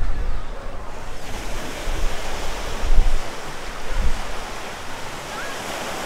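Surf washing onto the beach as a steady hiss, with wind buffeting the microphone in low rumbling gusts that die down after about four seconds.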